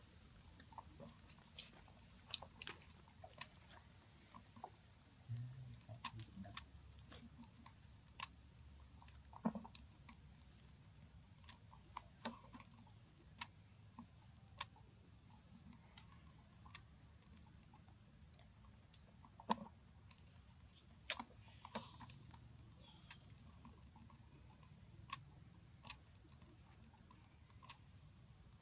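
A steady high-pitched drone of insects, with many short sharp clicks and crackles scattered over it.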